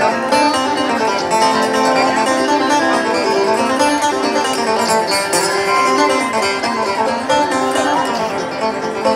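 Live bluegrass music: a clawhammer banjo played with an acoustic guitar, amplified through a concert sound system and heard from the crowd.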